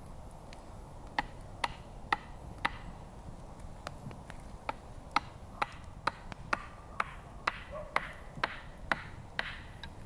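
Small hatchet striking wood again and again: a steady run of sharp chops about two a second, some with a short ringing note.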